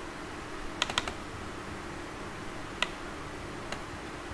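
A few sharp clicks from working a computer's mouse and keys: a quick run of three about a second in, a single one near three seconds, and a fainter one near the end, over a low steady hum.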